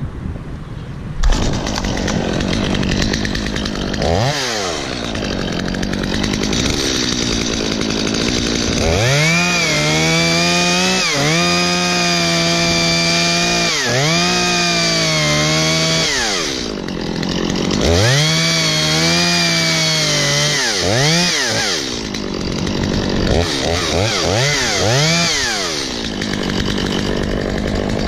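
Stihl MS 250 two-stroke chainsaw cutting through a coconut palm trunk: it idles at first, then is revved to full throttle in several long steady runs of two to three seconds, the revs dipping between them, with a few short blips of throttle near the end as the cut finishes.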